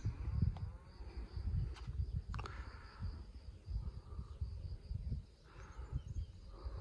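Insects chirring steadily in one high-pitched tone, over a low, uneven rumble of wind on the microphone.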